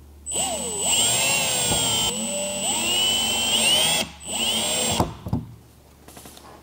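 Cordless drill-driver driving Phillips screws into a plastic camera bracket on a truck grille, the motor whine rising and falling in pitch as the trigger is feathered. It stops briefly about four seconds in, then runs again for about a second and ends with a sharp click.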